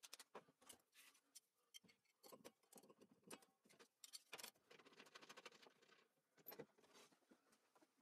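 Near silence broken by many faint, irregular clicks and taps: small handling noises of parts and tools on the table saw.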